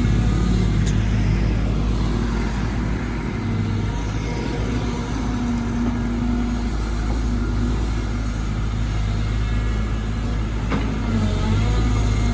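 Caterpillar 313GC excavator's diesel engine running steadily as the machine works, with a sharp knock near the end.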